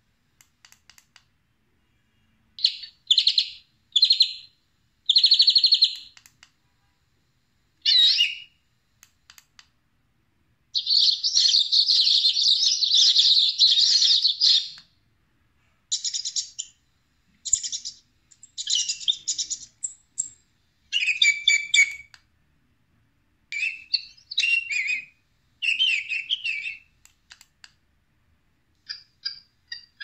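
Recorded bird calls played through the small speaker of an electronic hunting decoy bird caller (MP3 call player), as it is stepped from track to track by its wireless remote. The calls come as short, high-pitched bursts of differing pattern, separated by gaps, with one unbroken stretch of about four seconds near the middle.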